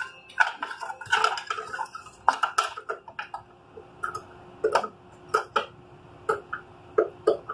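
Irregular sharp clicks and clinks of plastic cable connectors and wires knocking against a steel PC case as power-supply cables are handled and a SATA connector is pushed into place.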